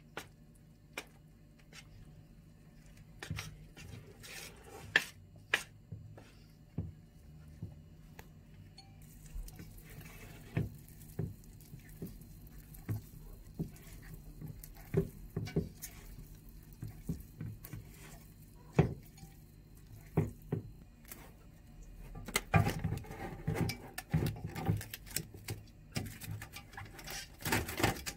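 A fork scraping and clinking against a stainless steel pot as flour is stirred, then hands working dough in the pot, giving irregular sharp metal taps. A denser stretch of knocking and rustling comes near the end.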